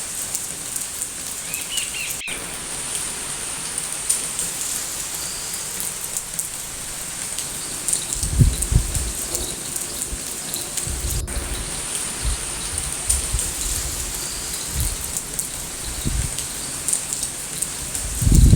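Steady rain hiss, with a brief bird chirp about two seconds in. From about eight seconds in, scattered low thumps join the rain.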